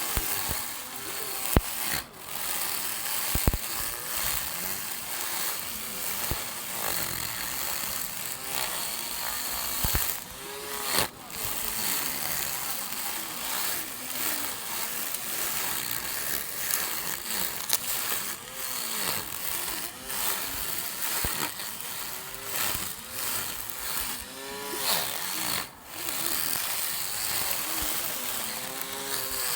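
Small lawn mower's motor running while cutting, its pitch rising and falling as the blade meets the grass, with a few brief drops in level.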